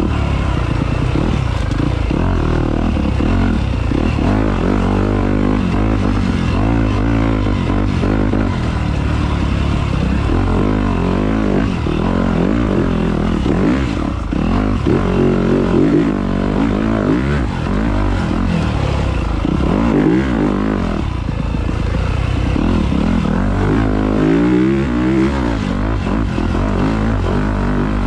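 A 2017 Yamaha YZ250F's single-cylinder four-stroke engine revving up and down as the dirt bike is ridden hard, its pitch rising and falling again and again with the throttle, heard close up from on the bike.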